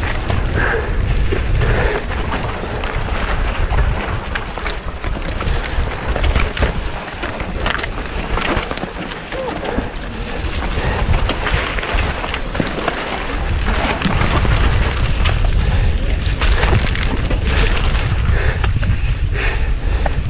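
Mountain bike descending fast over rough ground: heavy wind rumble on the microphone with the bike's chain and frame rattling and clattering continuously over rocks.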